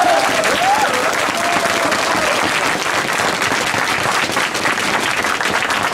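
Crowd applauding, with a few voices calling out about the first second.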